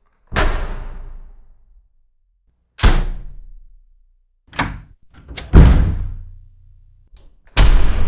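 A series of doors shutting, about five separate closes a second or two apart, each a sharp thud that fades away. The loudest, about five and a half seconds in, follows a quick latch click.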